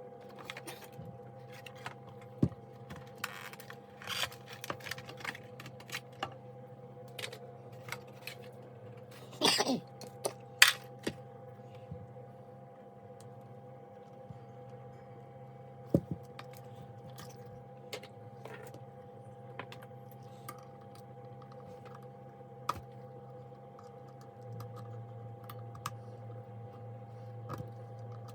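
Scattered clicks and knocks of plastic parts and tools being handled as a vacuum cleaner is taken apart, over a steady background hum. A louder clatter comes about ten seconds in.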